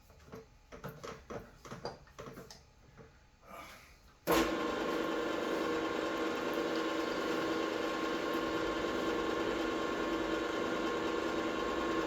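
A few light clicks and knocks of handling, then about four seconds in a milling machine's motor switches on abruptly and runs steadily.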